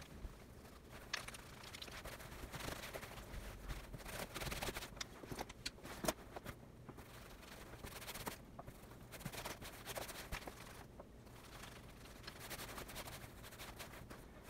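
Bare hands rubbing a beeswax-and-oil leather conditioner into a leather jacket sleeve: irregular soft rubbing and scuffing on the leather, with scattered small clicks.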